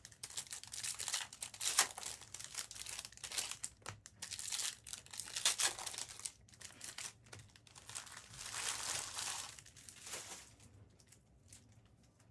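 Plastic wrapping crinkling and rustling as it is handled, in uneven bursts that die away about ten and a half seconds in.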